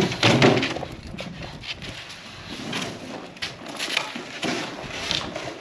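Rigid foam insulation boards being pulled apart along a saw cut and handled, with scattered creaks, scrapes and cracks of the foam.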